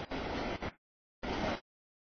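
Noise of a CSX freight train's cars rolling past, heard as two broken snatches of about half a second each that cut off abruptly to dead silence: the audio feed is dropping out.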